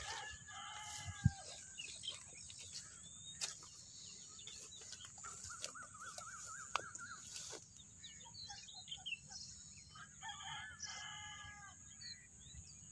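Faint farmland birdsong with a rooster crowing: several separate calls, including a warbling trill midway and more calls near the end. A few sharp clicks break in, the loudest about a second in.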